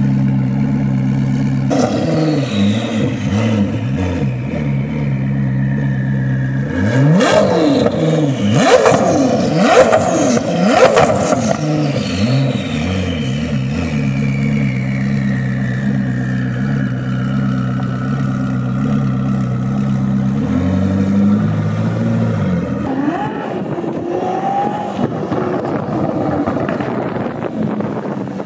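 Koenigsegg Jesko's twin-turbo V8 idling, blipped with quick revs that are loudest about seven to eleven seconds in, then settling back to a steady idle. In the last few seconds the car drives off.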